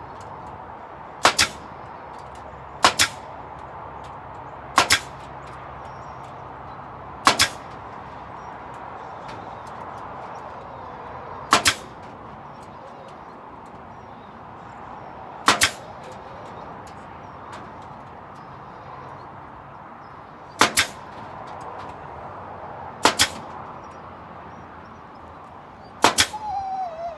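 A fastening gun driving staples or nails into wood. It fires nine sharp double cracks, spaced unevenly a couple of seconds apart. Near the end there is a short falling squeal.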